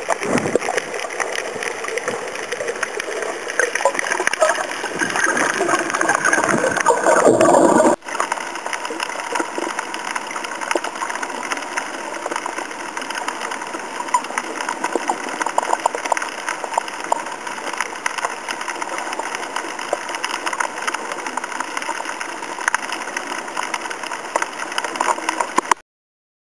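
Underwater sound picked up by a snorkeler's camera: a hiss of water with dense crackling throughout. It is louder and swelling for the first several seconds, then cuts abruptly to a quieter, even crackle, and stops suddenly near the end.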